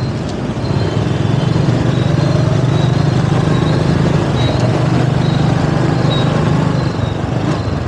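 Traffic noise heard from a moving motorbike: a steady low engine drone that swells about a second in and fades near the end, over wind and road noise, with a faint high beep repeating every half second or so.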